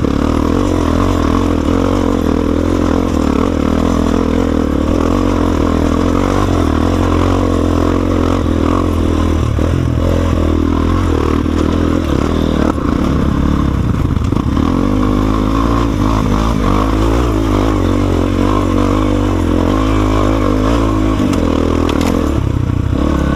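Guerrero GXR250 motorcycle's single-cylinder four-stroke engine breathing through a homemade free-flowing exhaust, running under load off-road, its revs rising and falling as the bike is ridden.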